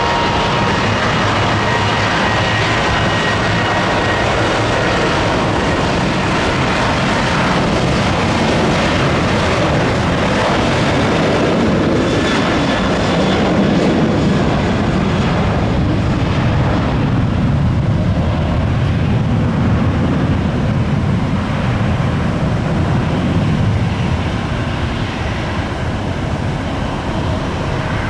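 Southwest Boeing 737's jet engines running at takeoff power through the takeoff roll. A high whine is heard over the first several seconds and then gives way to a deeper rumble as the jet accelerates down the runway toward liftoff.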